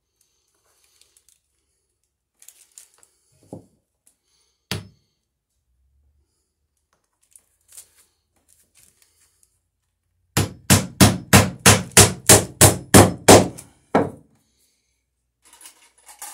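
Claw hammer driving a nail through a small wooden pad into a plank's epoxy-glued scarf joint, pinning the boards so the joint can't slide. A few light taps and one sharp blow, then about a dozen quick blows at roughly four a second and a last one.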